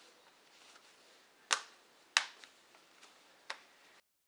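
Plastic laptop screen bezel being snapped into place by hand: three sharp clicks, about a second and a half in, just over two seconds in (the loudest) and near the end, with fainter ticks between. The sound cuts off abruptly just before the end.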